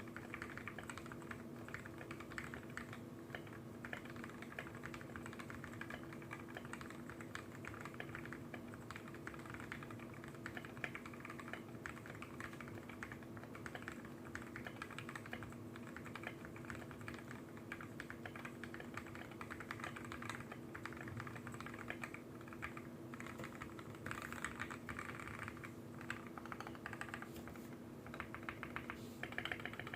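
Continuous typing on a 60% mechanical keyboard fitted with lubed and filmed linear 'fake' Tealios v1 switches, a brass plate and XDA keycaps: a steady stream of keystrokes, a little busier and louder near the end.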